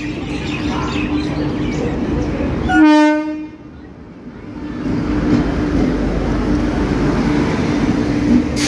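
Indian Railways electric locomotive and its train running into the platform, a steady rumble and clatter close by, with one short horn blast about three seconds in, the loudest sound.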